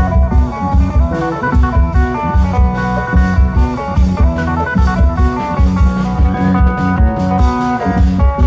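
Isan klong yao long-drum procession music played loud through a PA sound system: steady deep drum beats under a plucked string melody.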